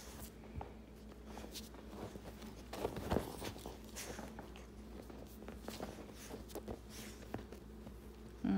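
Soft rustling, light taps and small clicking sounds of a chihuahua moving about on a couch cushion and licking at a person's hand. Near the end, a short vocal sound falling in pitch.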